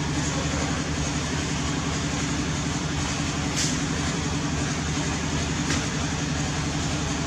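A steady low mechanical hum, like a running motor, with a couple of faint clicks partway through.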